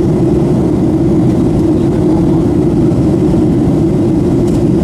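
Steady cabin noise inside a Boeing 737-700 in flight: its CFM56 jet engines and the airflow over the fuselage, heard from a window seat over the wing, with a strong low hum.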